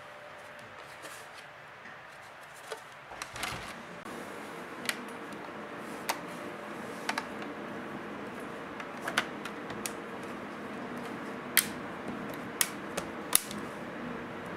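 Plastic back cover of a Samsung Galaxy Tab 3 being pressed onto the tablet, its clips snapping into place one after another. About a dozen sharp clicks at uneven intervals, the loudest near the end.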